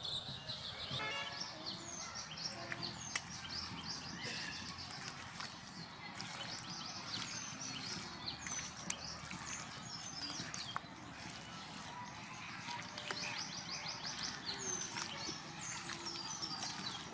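Small birds chirping and calling repeatedly in the background, over the soft wet sounds of hands mixing spiced raw chicken in a stainless-steel bowl, with a few sharp clicks.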